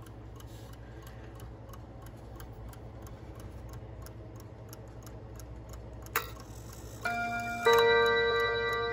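Vintage Heiss bim-bam mantel clock with a 130-022 mechanical movement, ticking rapidly and evenly. About six seconds in there is a sharp click, then the two hammers strike the gong rods in turn, bim then a louder bam, and the rods ring on.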